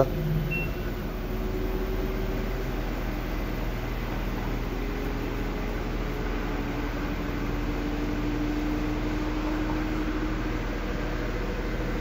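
LG DirectDrive washer-dryer running its direct-drive motor to turn the drum, a steady mechanical hum with a faint motor whine that creeps up in pitch as the motor speed rises. One short beep from the control panel comes just after the start.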